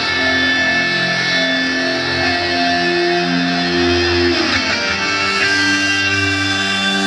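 Loud music played over a concert sound system: a slow melody of long held notes over a steady backing.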